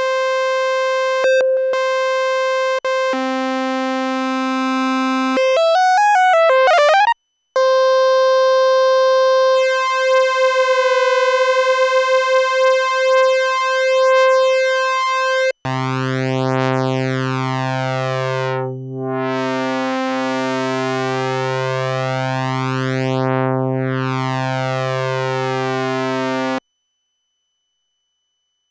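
Novation Bass Station II analog synthesizer sounding held sawtooth notes as its oscillators are set up. A steady note drops to a lower one, then the pitch wavers up and down as an oscillator is tuned. Back on the held note, a slow beating sets in as the second oscillator is detuned a few cents flat. Near the end a lower, fuller note with a slow, sweeping phasing rings for about ten seconds and stops.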